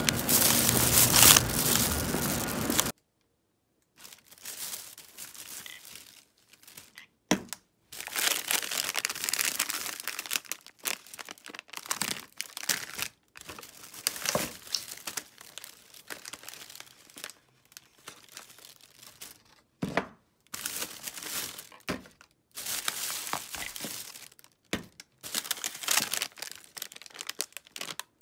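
Thin plastic carrier bag rustling and crinkling in irregular bursts as a hand rummages through it among ice cream tubs and wrapped bars, with a few sharp knocks of the packages. It opens with about three seconds of louder, continuous noise that cuts off suddenly.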